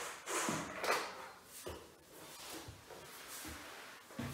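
Plastic Scalextric track pieces being handled on a wooden floor: several light knocks and clatters a second or so apart, with soft rubbing and rustling between them.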